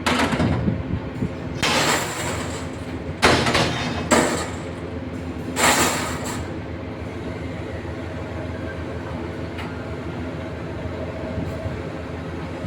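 A machine's motor running steadily, with four loud bursts of rushing noise in the first six seconds.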